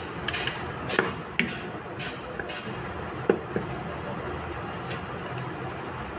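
A few light knocks and clicks from a charger circuit board with an aluminium heatsink and tools being handled on a cluttered workbench, over a steady background noise.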